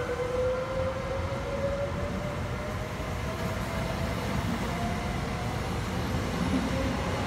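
Four-car Trenitalia ETR104 'Pop' electric multiple unit pulling away and passing close by. Its electric traction whine slowly rises in pitch as it gathers speed, over a steady low rumble from the running gear.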